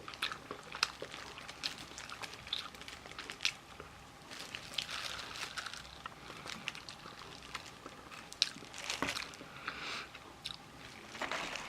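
A person biting and chewing crispy Korean fried chicken close to the microphone, with irregular crisp crunches.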